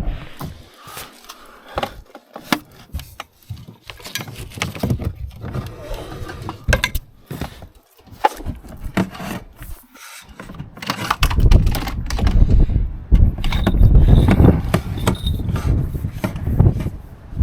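Quicksilver Gen II control cable being pushed through a hole, its jacket rubbing and scraping with scattered clicks and knocks. Wind buffets the microphone with a low rumble for the last several seconds.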